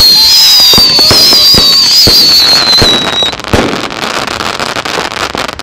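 Consumer firework cakes firing in a dense barrage of bangs and crackles, with a high whistle slowly falling in pitch through the first three seconds. The barrage thins to scattered pops after about three seconds.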